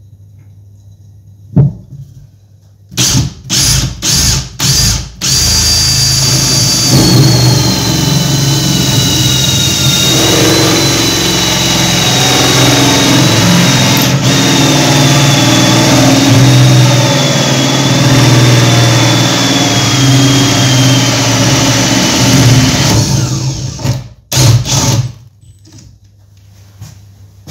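Makita 18V cordless drill driving a hole saw through the rim of a bath to cut a tap hole: a few short trigger bursts, then about twenty seconds of steady cutting with a motor whine that slowly drops in pitch under load, then a few more short bursts.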